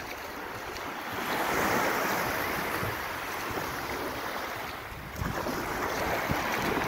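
Shallow sea water washing gently onto sand, with wind rumbling on the microphone. The wash swells about a second in and again about five seconds in.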